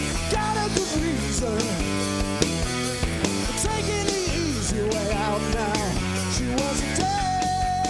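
Live rock band playing without words: drums, bass and electric guitar, with a lead melody that bends in pitch and holds one long note near the end.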